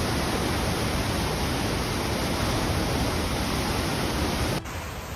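Loud, steady rushing of floodwater. About four and a half seconds in it cuts abruptly to a quieter, steady hiss of water.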